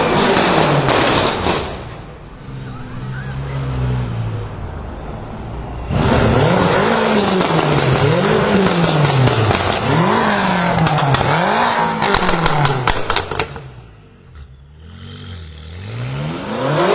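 BMW M5 F10's twin-turbo V8 with catless downpipes being revved over and over, the revs rising and falling about once a second. Three quarters of the way through, a quick string of exhaust crackles and pops comes as the revs drop.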